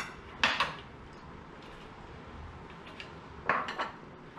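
A metal spoon clinking against a glass baking dish and ceramic bowls as fish is scooped out. There are a couple of sharp clinks about half a second in and a quick cluster of them about three and a half seconds in.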